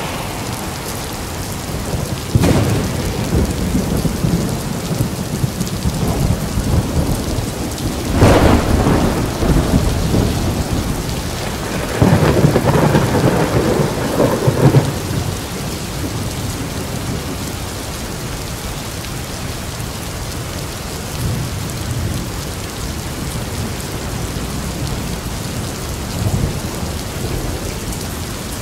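Steady rain with thunder: loud claps about two and eight seconds in, a longer roll from about twelve to fifteen seconds, and weaker rumbles later on.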